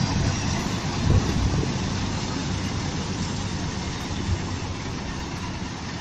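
Farm harvesting machine running: a steady engine rumble with mechanical noise.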